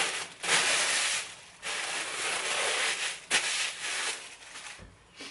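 Rustling and rubbing of baby clothes and their packaging being handled and gathered up, in several stretches of about a second each, with a short click partway through.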